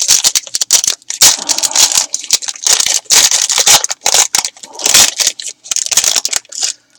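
A trading card pack's wrapper being torn open and crinkled by hand, with irregular crackling and rustling throughout.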